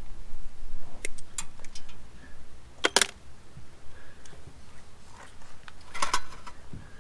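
A few scattered sharp clicks and knocks, the loudest about three seconds in and again near six seconds, over a low steady hum.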